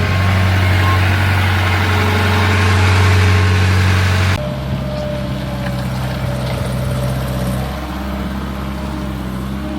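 Diesel engines of backhoe loaders idling steadily; about four seconds in the sound changes abruptly to a slightly quieter engine with a different pitch.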